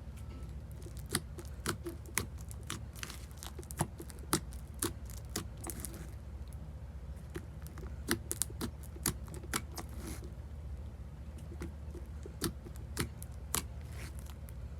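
Slime being squeezed and poked by hand, giving irregular sharp clicks and pops over a low steady hum.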